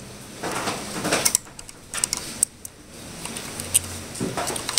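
Irregular light clicks, taps and rustling as new electrolytic capacitors are handled and their leads pushed through the holes of a TV power supply circuit board.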